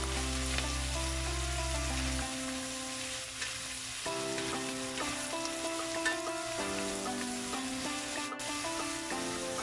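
Shredded cabbage, carrot, red chilli and spring onion sizzling in hot oil in a stainless steel pan as they are stir-fried with a wooden spatula, with a few light knocks of the spatula against the pan. Background music of held notes plays over it.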